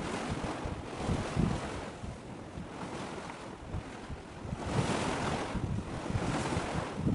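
Gusty wind buffeting the microphone over a steady rush of wind and sea. The rush grows louder about two-thirds of the way through.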